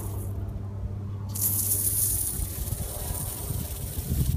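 Water and trapped air hissing out of the Force 1800 electric pressure washer's spray lance with the trigger held and the motor off, bleeding the air out of the line before start-up. The steady spray hiss starts about a second in.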